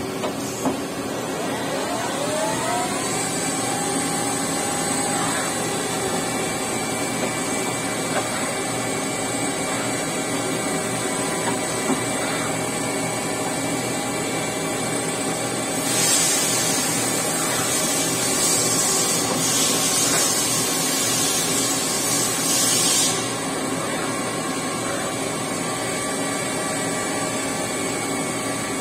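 Nakamura-Tome TMC-15 CNC turning center running: a motor whine rises in pitch over the first few seconds as the drive spins up, then holds steady. A loud hiss joins it for about seven seconds in the middle.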